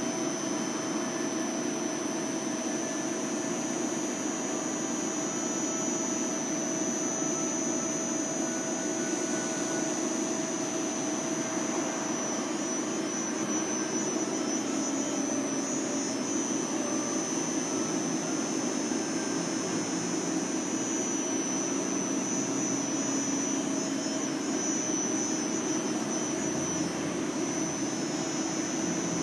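OKK MHA 600 copy milling machine running, a steady mechanical hum with a constant high-pitched whine over it.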